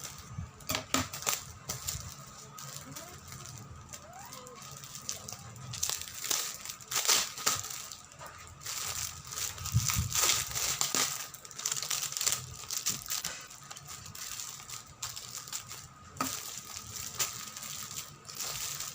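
Parcel packaging crinkling, crackling and tearing in irregular bursts as it is worked open by hand.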